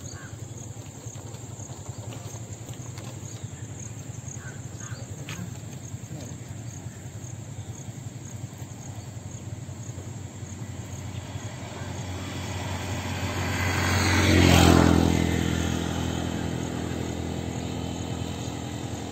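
Motor vehicle engine running steadily at a low rumble, with another engine vehicle passing close by, growing louder to a peak about three-quarters of the way through and then fading away.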